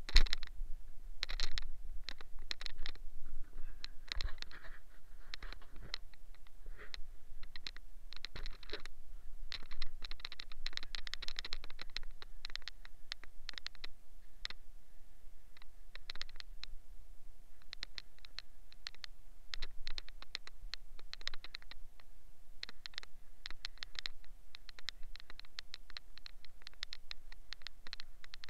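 Scrubbing of a foam-covered steel wheel rim and its tyre: a run of short, irregular scratchy strokes with brief pauses.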